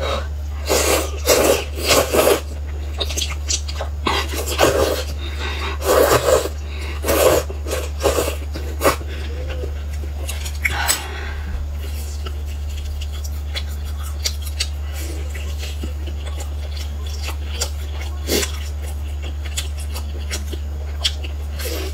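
Close-miked eating sounds: rice noodles slurped in loud bursts through the first half, then quieter chewing and small mouth clicks while biting into a pan-fried stuffed flatbread, over a steady low hum.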